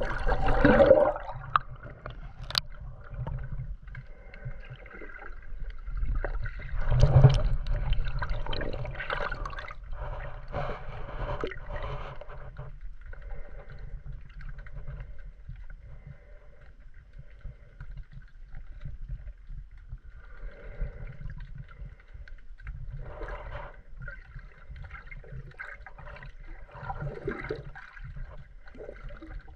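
Water sloshing and gurgling around a camera held just under the sea's surface, muffled as heard underwater, with louder splashing surges in the first second and around seven seconds in.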